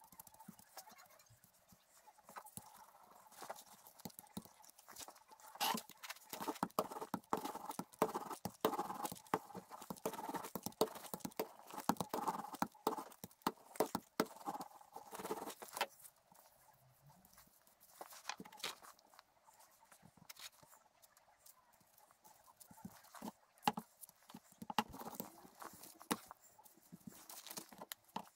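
Hand gluing-up work on wood veneer: a small rubber roller rolling over the epoxy-coated veneer and a glue brush dabbing, heard as irregular light taps and clicks, with a denser rasping run through the middle.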